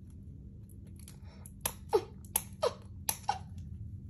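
A quick run of sharp plastic clicks and snaps, about eight in two seconds and starting about a second in, as a toy figure's packaging is worked at to get it open.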